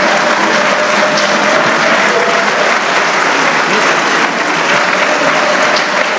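A room of journalists applauding loudly, a dense unbroken clapping that holds steady throughout.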